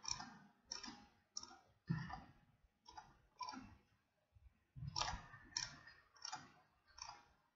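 Faint clicks of a computer mouse, about one every half second to second, with a pause of a second or so in the middle.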